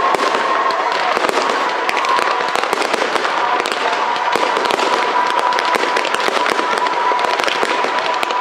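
Aerial fireworks bursting in quick succession: a dense, constant crackling and popping of many reports, with a steady high tone held underneath through much of it.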